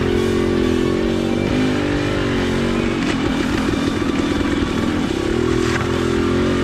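Motorcycle engine running under way, held at steady revs, then choppy on-and-off throttle for a couple of seconds past the middle, then steady again near the end.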